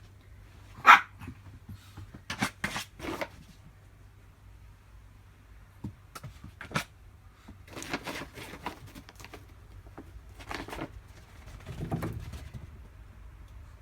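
A small dog barks once, sharply, about a second in, followed by scattered scuffs and knocks.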